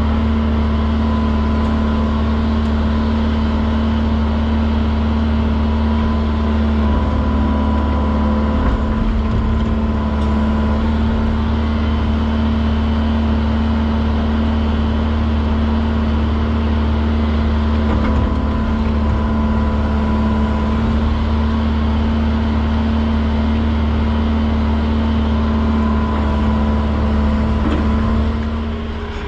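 Diesel engine of an earthmoving machine running steadily under load while it pushes dirt, its pitch shifting slightly a couple of times.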